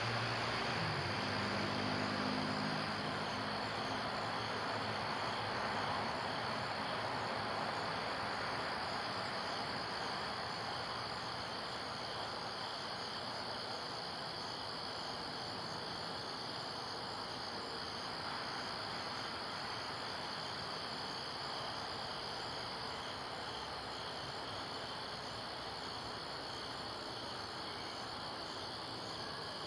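Steady chorus of night insects over an even hiss, with a low hum that fades out about three seconds in.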